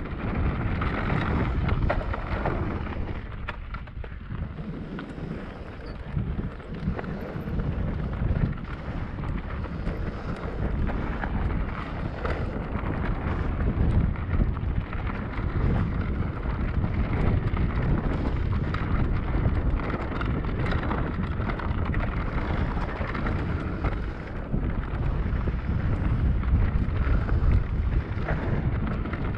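Wind rumbling on the microphone over the rumble and rattle of a Cube Stereo Hybrid 160 electric mountain bike riding down a rough trail, with many small knocks and clicks from the bike over the ground.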